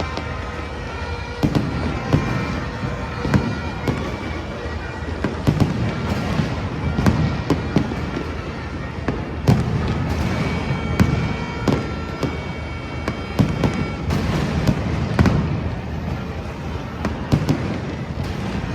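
Fireworks display: shells bursting in quick succession, many sharp bangs over a continuous low rumble of booms.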